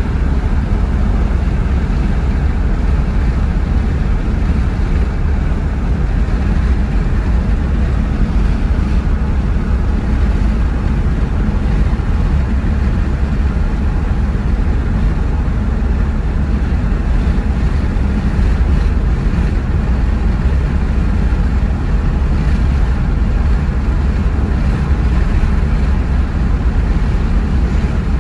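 Steady road noise inside a moving car's cabin: a low tyre and engine rumble with rushing air, even throughout.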